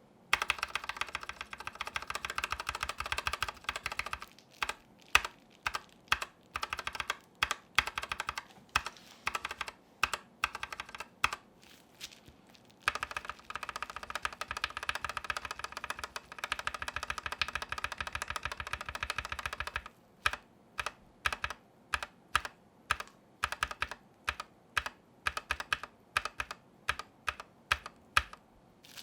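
Gateron Yellow Milky Top linear keyboard switches being typed on, in two rounds to compare lubed and unlubed switches. Each round is a burst of rapid typing followed by single keypresses about two a second.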